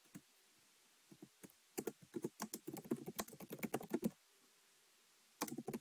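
Typing on a computer keyboard: a few scattered keystrokes, then a quick run of keystrokes for about two seconds, a brief pause, and a second run starting near the end.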